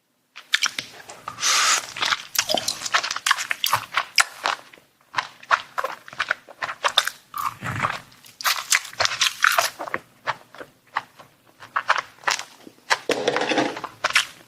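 Close-miked chewing and biting, with dense crisp clicks and crackles and wet mouth sounds, starting abruptly about half a second in.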